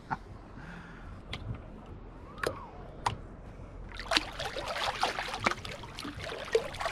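Bare feet in calm seawater: a few soft drips and plinks at first, then splashing from about four seconds in as the feet kick.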